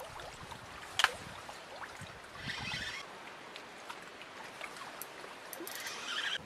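Outdoor lakeside ambience of small waves lapping. A single sharp click comes about a second in, and there are two short rustles, at about two and a half and six seconds.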